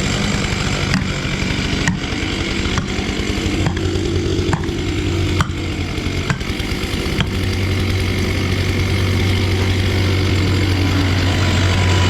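An engine idling steadily, with sharp knocks about once a second over the first half; about seven seconds in the engine grows louder and steadier.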